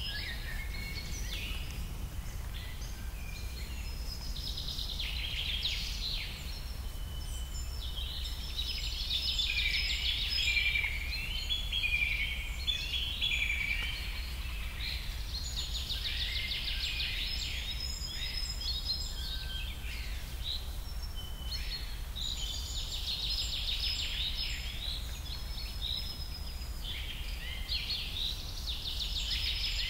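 A flock of small birds chirping and twittering in a dense, continuous chatter that swells and fades, over a steady low rumble.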